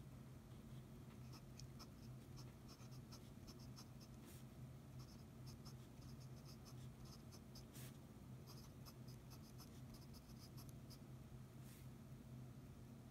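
Fountain pen nib scratching faintly on paper in quick clusters of short strokes as it writes by hand, with a few louder single clicks and a steady low hum underneath.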